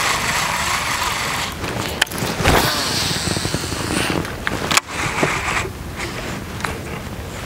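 Wind buffeting the microphone as a loud, steady rushing noise, with a few sharp clicks about two seconds in, again half a second later, and near five seconds.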